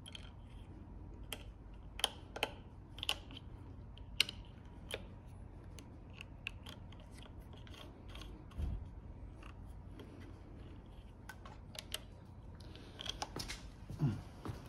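Scattered light clicks and ticks at irregular intervals from hands handling an electric scooter's front brake lever while threading the steel inner brake cable into it.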